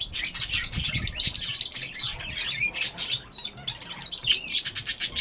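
A chorus of small cage birds, goldfinches and parrots among them, chirping and twittering over one another, with a quick run of notes near the end.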